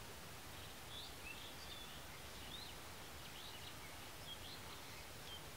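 Small birds chirping faintly in a string of short high notes over a steady outdoor hiss.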